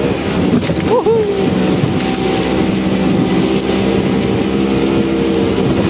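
Yamaha 90-horsepower outboard motor running steadily at speed, with wind and water noise over it. A short rising-then-falling pitched sound about a second in.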